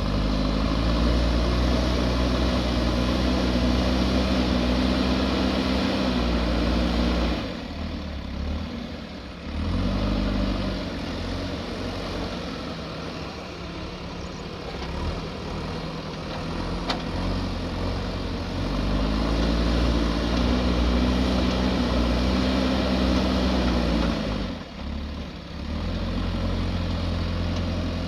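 Diesel engine of a JCB backhoe loader running at high revs under load, dropping back about seven seconds in. It runs more quietly for a while, then revs up again and holds for several seconds before falling away near the end. A single sharp click comes midway.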